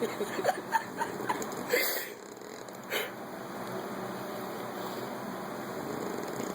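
A man snoring in his sleep: a breathy intake about two seconds in, a short snort about a second later, then a low, rapidly rattling snore that slowly grows louder toward the end.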